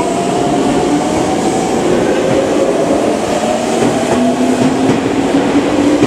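Tokyu Ikegami Line electric train pulling out of a station platform. Its motor whine shifts in pitch as it picks up speed, over a steady rumble of wheels on the rails.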